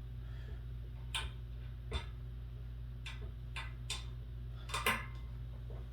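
A few scattered, irregular light clicks and taps from desk parts and hardware being handled, over a steady low hum.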